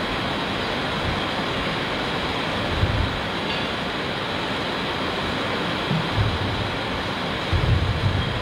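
Steady rushing background noise with a few short low thumps about three, six and eight seconds in.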